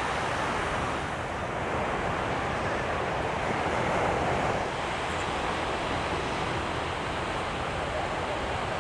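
Pacific Ocean surf washing onto the beach, a steady rushing noise that swells a little midway, with wind buffeting the microphone.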